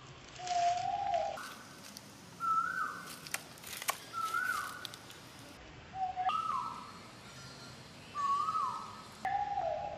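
Baby macaque cooing: a string of short, whistle-like calls, each holding a note and then rising and dropping away, repeated about every one and a half to two seconds. A few sharp clicks come in the middle.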